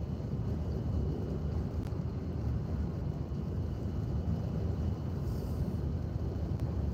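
Steady low rumble of road, tyre and engine noise heard from inside a car cruising at motorway speed.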